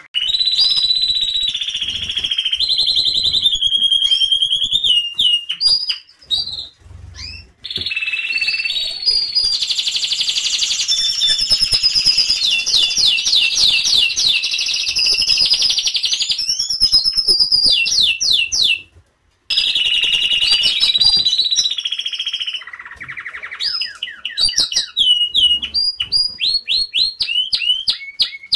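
Domestic canary song: a long run of varied phrases, with held whistled notes, fast trills and rolling tours, broken by short pauses partway through.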